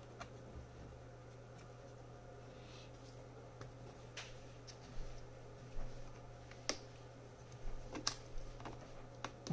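Sparse light clicks and small scrapes as a metal prying tool works at the edge of a laptop keyboard, levering it out of its plastic palmrest, over a steady low hum.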